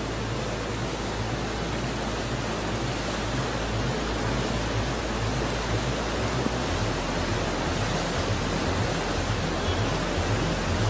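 Flash floodwater rushing steadily through a street, an even, unbroken wash of water noise.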